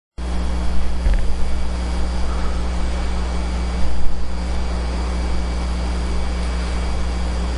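Steady room noise: a low, constant hum with a hiss over it, and a couple of soft bumps about a second in and around four seconds.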